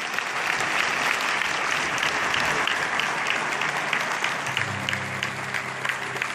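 Large audience applauding steadily, many hands clapping together. About two-thirds of the way through, a low held tone joins under the clapping.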